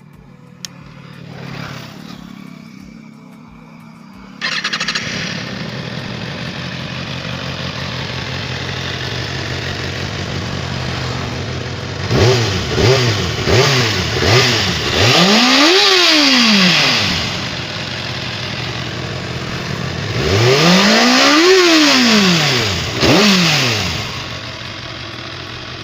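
Kawasaki Ninja ZX-6R's inline-four engine through its stock exhaust: it catches about four seconds in and idles, then gets a few quick throttle blips and two long revs that climb and fall back, with a last short blip before it settles to idle.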